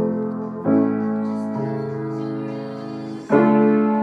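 Piano chords played slowly and left to ring: one sounds at the start, another is struck about two-thirds of a second in, and a louder one a little over three seconds in.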